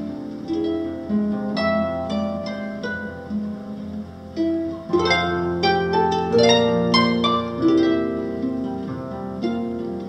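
Concert harp played solo: plucked notes and chords that ring on, the playing growing fuller and louder about halfway through.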